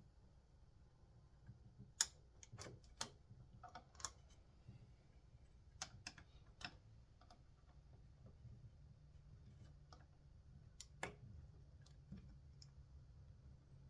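Scattered light clicks and taps from a screwdriver and small metal parts of a chainsaw recoil starter being reassembled by hand, with quiet gaps between them; the sharpest click is about 2 seconds in, another about 11 seconds in.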